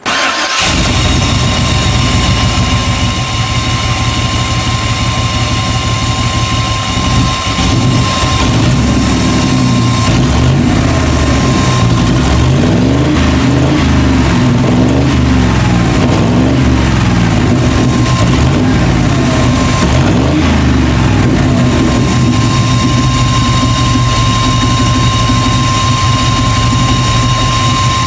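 1998 Chevy van's 5.7-litre V8 running from inside the cab with the engine cover off, its speed rising and falling a few times in the middle. The engine runs poorly with misfire and lean codes, caused by a vacuum leak at the O-ring around the fuel injector assembly in the upper intake manifold.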